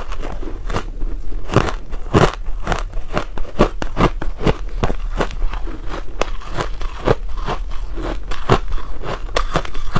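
Ice being crunched and chewed in the mouth, close to the microphone: a steady run of sharp crunches, about three a second.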